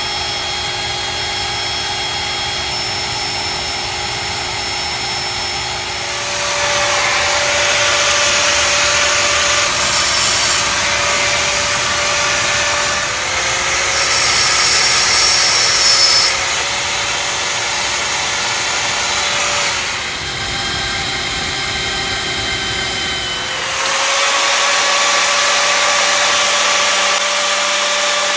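Small corded angle grinder with a wire wheel scouring rusty steel, its motor whining steadily under a rough scraping noise that is loudest about halfway through. Near the end the scraping drops away and the motor's whine rises and holds steady as the wheel spins free.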